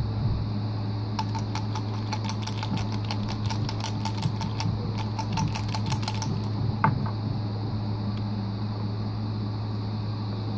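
Thick grey slime squeezed and kneaded by hand, crackling with a quick run of small clicks and pops, several a second, from about a second in until about six seconds in. A steady low hum runs underneath.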